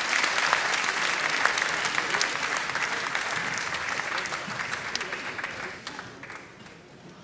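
Arena crowd applauding, a dense patter of many hands clapping that fades away about six seconds in.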